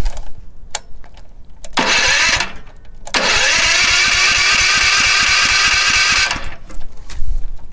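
Electric starter cranking a single-cylinder four-stroke petrol engine (a 6.5 hp Honda GX200 clone): a short whirr about two seconds in, then a longer crank of about three seconds with a starter whine over a regular beat of compression strokes. The engine doesn't catch and the cranking stops abruptly.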